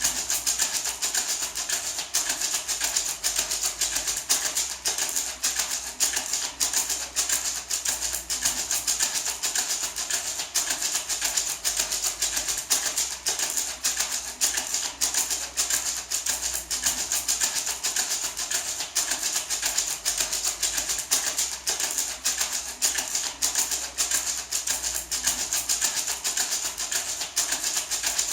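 A small painted gourd maraca shaken steadily without a break, a dense, even, hissing rattle of seeds against the shell.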